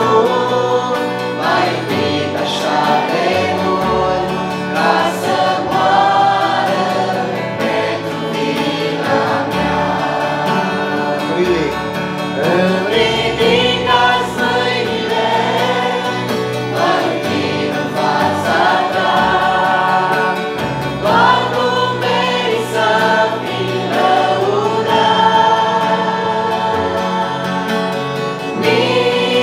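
A small group of three women and a man singing a Christian worship song together into microphones, with the man strumming an acoustic guitar.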